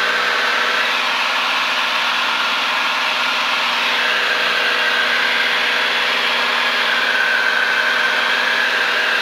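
Single-engine light aircraft's engine and propeller droning steadily in cruise, heard from inside the cockpit.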